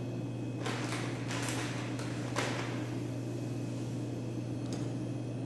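A kitchen cloth being handled and rubbed: three short rustling swishes between about one and two and a half seconds in, and a small click near the end, over a steady low hum.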